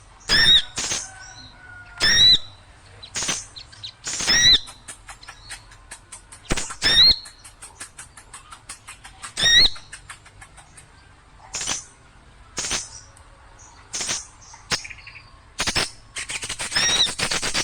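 Small birds calling noisily: loud, sharp, ringing calls about once a second, with runs of quick, even ticking notes between them and a fast trill near the end. This is a bird-lure call recording.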